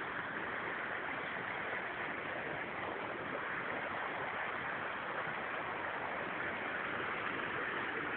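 Steady rush of water from the Krka river's cascades, growing slightly louder.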